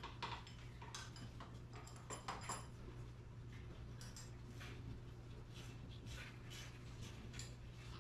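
Faint, irregular metal clicks and clinks of hand tools working on the steel cable drums of a garage door's torsion tube, as the drum set screws are loosened, over a steady low hum.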